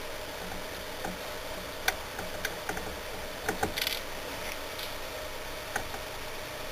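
A few light, scattered clicks and ticks of metal tools against a computer circuit board and a small surface-mount IC as the chip is worked free of its pads, over a steady background hiss.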